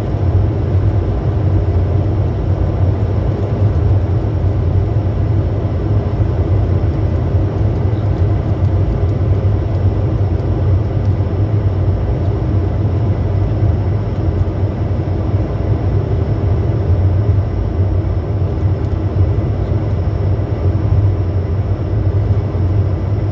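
Steady cockpit noise inside a Bombardier Challenger 350 business jet on final approach: a constant low rumble of airflow and engines, with faint steady high-pitched tones above it.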